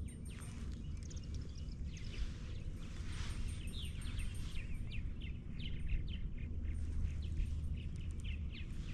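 Wild birds singing and chirping: a quick series of short falling notes, densest from about three seconds in, over a steady low rumble.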